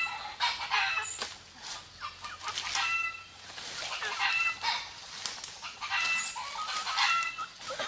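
Free-range chickens clucking in short, repeated calls, over dry bamboo leaf litter rustling and crackling underfoot.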